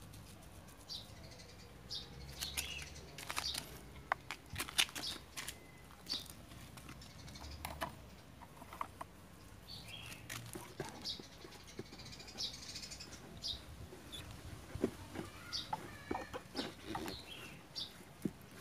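Soft rustling and irregular taps of hands pressing bougainvillea cuttings into a bucket of loose potting mix, with short high bird chirps scattered throughout.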